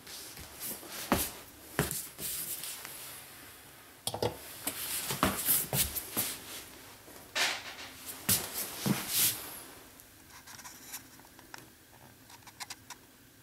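Hands handling plastic dishwasher parts as the filter assembly and water shaft are lifted out of the sump: irregular plastic clicks, knocks and scraping. The handling is busiest for the first nine seconds or so, then thins to faint ticks and rubbing.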